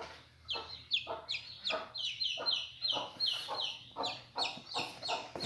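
Baby chicks peeping: a rapid series of short, high chirps that fall in pitch, a few per second.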